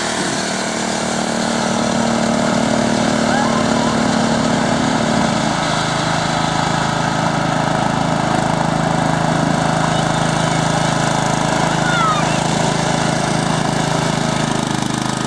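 Riding lawn mower engines running steadily during a race, with a change in engine pitch about five seconds in.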